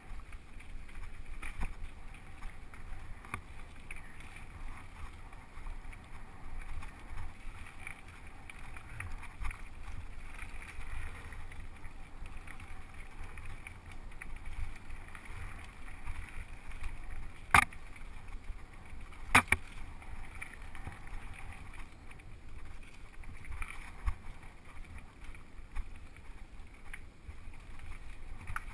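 Mountain bike riding fast down a dirt singletrack, heard from a camera mounted on the rider: a steady rumble of wind and tyre and trail noise. Two sharp knocks come about two seconds apart, a little past halfway, as the bike jolts over the bumps.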